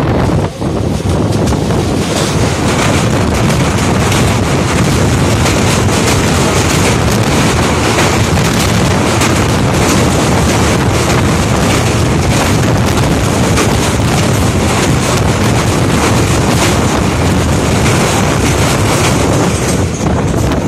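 Passenger train running at speed, heard from an open coach door: a steady rumble of the coaches with wind buffeting the microphone and many short clicks and rattles as it crosses a steel truss bridge.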